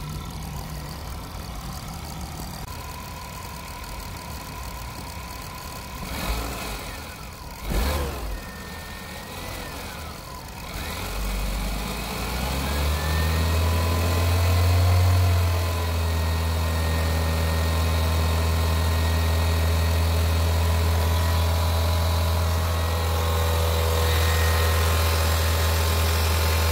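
Seat Ibiza 1.2 TSI four-cylinder turbo petrol engine running at idle, with a few brief knocks about six to eight seconds in. About twelve seconds in the revs rise and are held steady at a higher speed, about 2000 rpm, to check the alternator's charging voltage.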